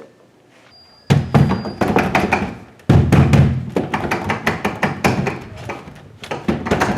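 Loud, rapid knocking and banging that starts suddenly about a second in, with a second hard onset about two seconds later: the mysterious noise that alarms the character.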